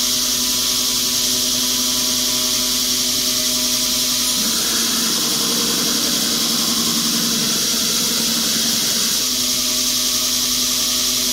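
Brodbeck Ironworks 2x72 belt grinder running steadily with a 40-grit belt; about four seconds in, an AEB-L steel chef knife blade is pressed against the belt and ground for about five seconds, adding a grinding rasp over the motor, then lifted off.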